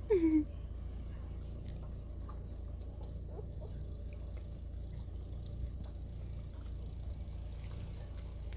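A puppy gives one short whine that falls in pitch right at the start, and a fainter whimper about three seconds in, over a steady low background rumble.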